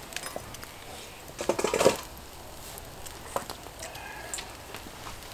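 Small clicks and rustles of people eating and handling food and lettuce at a table, with one brief, louder crackly burst about a second and a half in.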